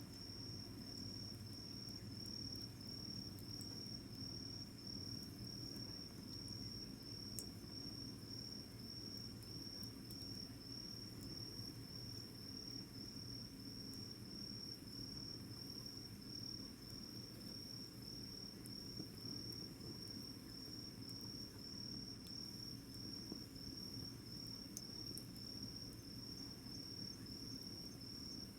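A cricket singing a steady, evenly pulsed high chirp, about one and a half pulses a second, over a low hush, with a few faint clicks.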